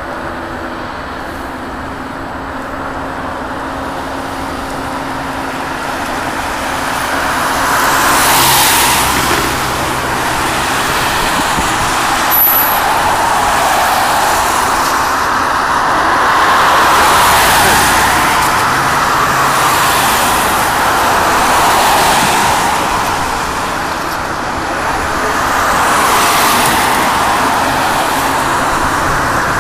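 Steady outdoor engine noise that swells and fades every few seconds, like road traffic passing.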